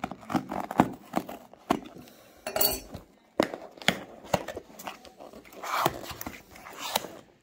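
A cardboard box being opened: a blade worked along its taped end and the flap pried up and bent open, giving a run of sharp clicks and scrapes with short bursts of rustling cardboard.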